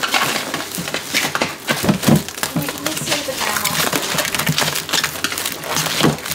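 Clear plastic wrap crinkling and crackling as it is peeled and pulled off a 3D printer's acrylic cover, in quick, irregular bursts.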